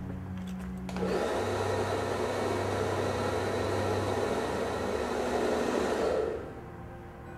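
A steady rushing noise starts suddenly about a second in and dies away about a second before the end, over a low droning tone.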